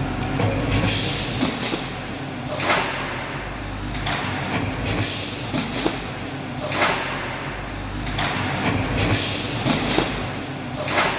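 Industrial machinery in a factory hall: a steady low hum with a whooshing, clanking surge about every one and a half seconds, like a machine cycling.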